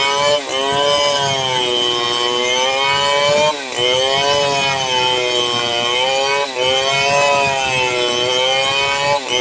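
Stihl two-stroke chainsaw cutting through a thick log, its engine note wavering up and down under load, with a brief dip about every three seconds.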